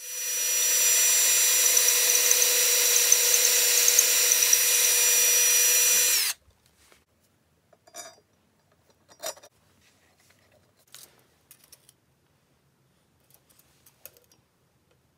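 Electric power tool spinning up and running steadily with a high whine for about six seconds, then stopping abruptly, followed by a few faint knocks.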